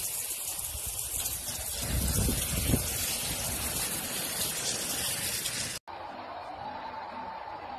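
Hurricane storm noise: a steady, loud rushing of wind and rain that cuts off abruptly about six seconds in. A quieter hiss with a faint, wavering steady tone follows.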